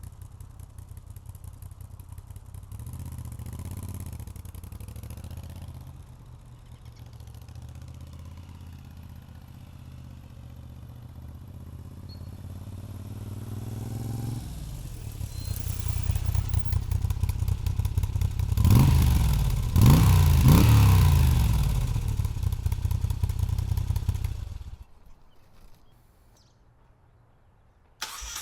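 Moto Guzzi V7 850's air-cooled transverse V-twin running through an aftermarket Mistral exhaust: it idles, the revs climb about halfway through, and a few quick throttle blips come about two-thirds in. The engine is switched off and stops abruptly near the end.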